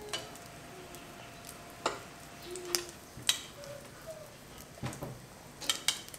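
A fork stirring beaten egg in a ceramic bowl, clinking sharply against the bowl several times, over the faint steady sizzle of bread frying in butter in a cast iron skillet.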